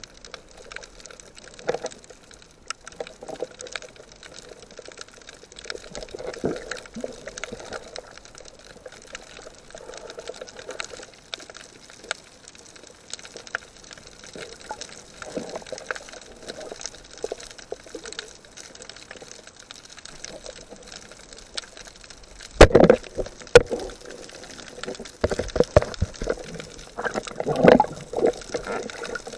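Water and bubbling noise of a snorkel dive, with two sharp knocks about a second apart some two-thirds of the way through, followed by louder irregular splashing and bubbling.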